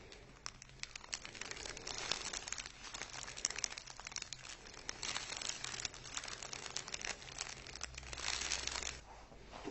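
Quiet, dense crinkling and rustling, as of material being handled or shifted on, stopping about nine seconds in.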